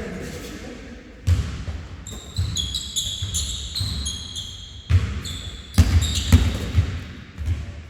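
Basketball bouncing on a gym floor in uneven dribbles, about ten thumps. Through the middle, sneakers squeak on the court in many short, high chirps.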